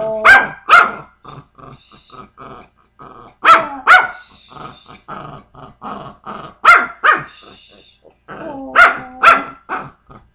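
Pomeranian barking: four pairs of sharp, loud barks spaced a few seconds apart. Between them come quieter, short growly grumbles, and a held, lower-pitched cry leads into the last pair.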